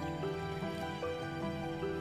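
Background music: an instrumental melody of held notes that change about every half second.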